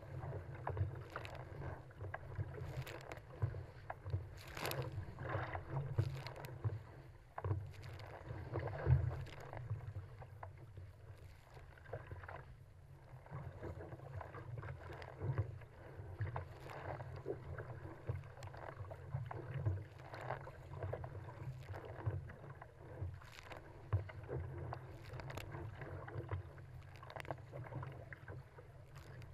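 Choppy sea water splashing and slapping against a surfski's hull in irregular bursts, over a steady low rush, while it is paddled downwind.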